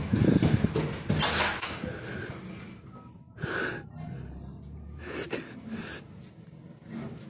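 Breathy gasps in irregular bursts, with rustle from a handheld phone being swung about.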